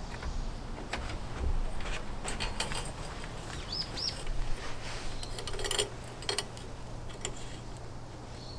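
Clothes pegs and rubber gloves clicking and rustling against a metal drying rack as the gloves are hung up. A bird chirps twice about four seconds in.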